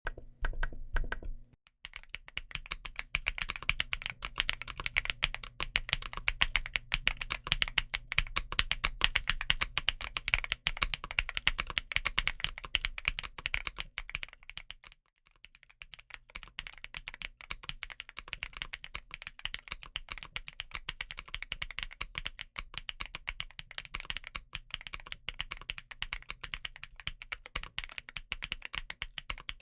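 Fast typing on a TK75PRO aluminum-frame mechanical keyboard, a steady stream of key clicks. It stops briefly about halfway, then carries on a little quieter.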